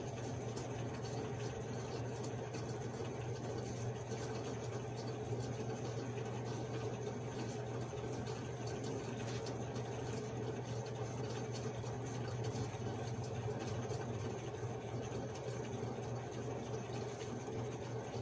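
Steady low background hum from a running machine or appliance, unchanging in level and pitch.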